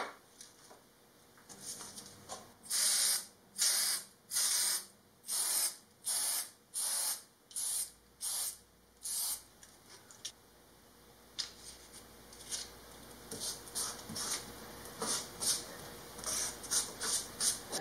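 Aerosol can of Krylon spray adhesive being sprayed in about ten short hissing bursts, each around half a second. Then, from about halfway through, fainter rubbing and light taps as a paper template is pressed down by hand onto a piece of mahogany.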